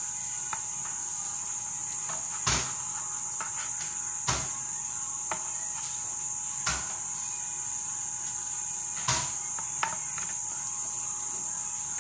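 Raw black chicken being handled on a countertop: about five sharp knocks a couple of seconds apart over a steady background hiss and faint hum.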